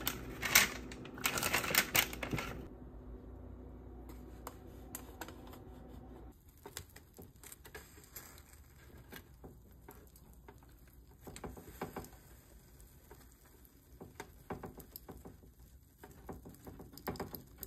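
A silicone spatula tossing sliced zucchini and yellow squash on a parchment-lined sheet pan: rapid clattering and scraping in the first couple of seconds, then scattered light clicks and rustles.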